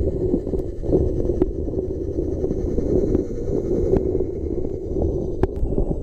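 Muffled, low rumble of an RC scale truck driving along a gravel creek bed, heard through a camera submerged underwater, with a few sharp clicks.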